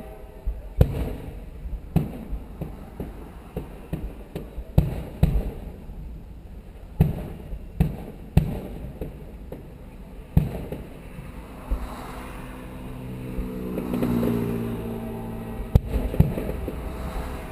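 Aerial fireworks shells bursting in an irregular string of bangs, some sharp and loud, others softer. A low hum swells and fades in the middle of it.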